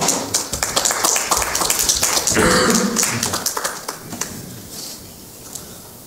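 Scattered applause from a small congregation, a dense run of hand claps for about four seconds that then dies away.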